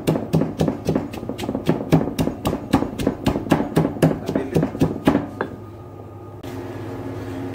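Stone pestle pounding dried shrimp, onion and chilli in a stone mortar, about four strikes a second, stopping about five seconds in, once the paste is crushed fine.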